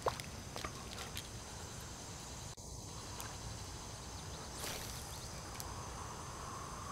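Quiet outdoor background: a steady high-pitched insect drone, with a few faint clicks and a brief swish a little past the middle.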